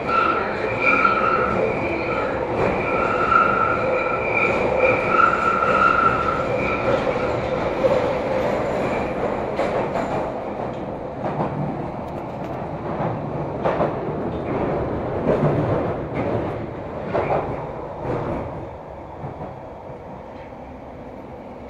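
London Underground 1972-stock Bakerloo line train running, heard from inside the carriage: a steady rumble with a high, wavering tone over it for the first several seconds. Scattered knocks and clacks from the wheels and car body follow, and the noise dies down near the end.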